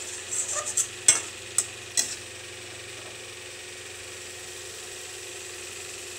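A spatula scraping and knocking against an aluminium kadai as a thick curry is stirred, with several sharp strokes in the first two seconds. After that comes a steady hiss from the pan simmering on the stove.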